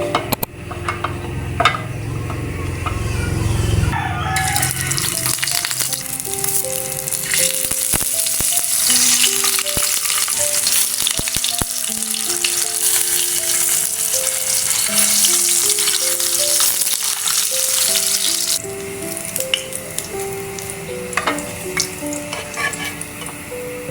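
Food frying, sizzling and crackling from about four seconds in until it cuts off abruptly near the end, with a few sharp clicks along the way.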